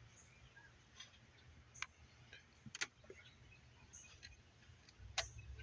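A few faint, sharp clicks and taps, scattered about a second apart, the loudest near the middle and near the end, from hoses and their clips being handled and fitted on the engine.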